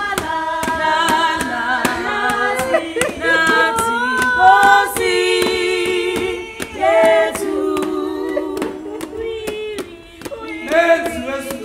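A small group of voices singing unaccompanied in harmony, held notes moving together from chord to chord, with a steady beat of sharp ticks, about three a second, underneath.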